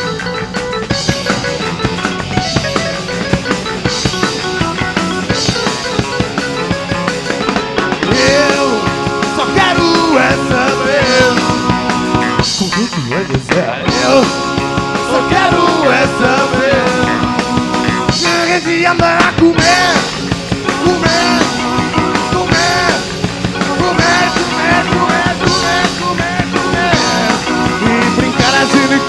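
Live rock band playing: a drum kit keeps a steady beat under electric guitars, and a melodic line that rises and falls comes in about eight seconds in.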